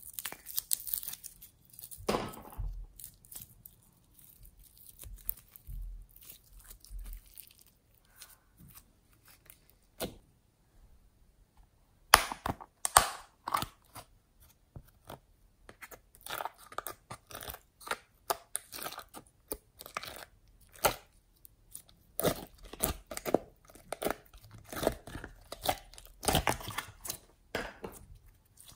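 Homemade glitter slime pressed, poked and pulled by hand, giving a run of short sticky clicks and pops. It is sparser in the middle and busier from about twelve seconds in, where one sharp loud click stands out.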